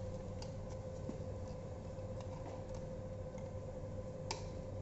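Faint handling noise of a cable and a plastic cable clip being worked under an e-bike's top tube, with a few light ticks and one sharper click about four seconds in. A steady background hum runs under it.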